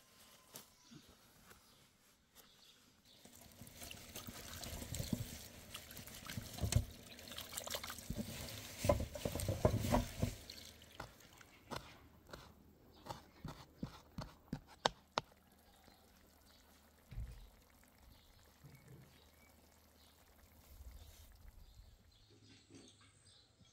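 Liquid pouring and trickling, with small clicks, then a quick run of separate clicks and taps that thins out and stops.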